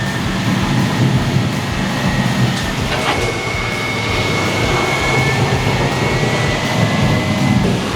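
Roll-off truck running, a steady heavy rumble with rattling. A faint steady high whine comes in about three seconds in and stops just before the end.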